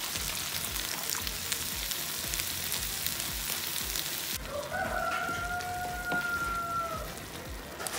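Ground meat, beans and sauce sizzling in a frying pan as a wooden spoon stirs them; the sizzle quietens a little over halfway through. Over it a rooster crows once in the background, one long drawn-out call that drops off at the end.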